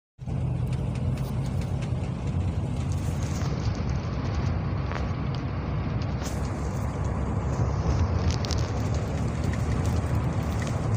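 Steady engine hum and road noise heard from inside a moving vehicle's cabin, with a few light clicks or rattles in the middle.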